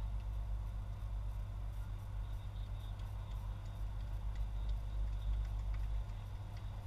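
Steady low rumble, with a few faint short ticks in the second half.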